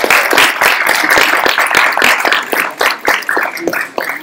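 Audience applauding, a dense patter of many hands clapping that thins to a few separate claps near the end.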